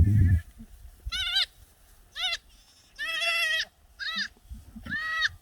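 Goats bleating: five short, high-pitched bleats about a second apart, the middle one the longest. A brief low rumble comes at the very start.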